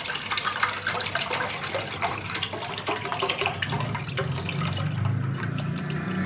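Milk pouring from a carton into a steel saucepan, a steady splashing stream that thins out near the end as the carton empties. A low hum comes in about four seconds in.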